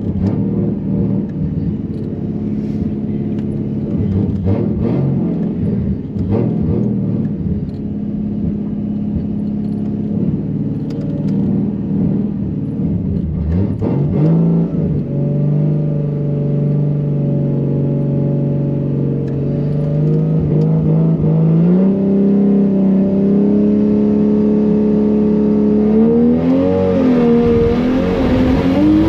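Turbocharged Nissan RB30 straight-six running at idle and low revs. The throttle is blipped a few times and the revs are held at different steady speeds, then rise and fall unevenly near the end.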